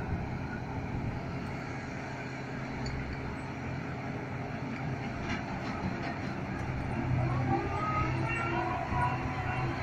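Crawler crane's diesel engine running steadily during dynamic ground compaction. About seven seconds in it grows a little louder and a higher whine joins it as the hoist takes up the drop weight to lift it again.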